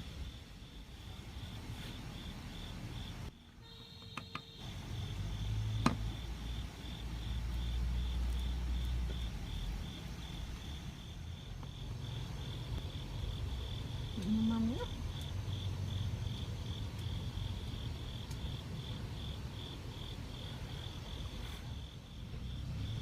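Night insects chirping steadily in a high, even pulse about three times a second, over a low rumble, with a single sharp click partway through.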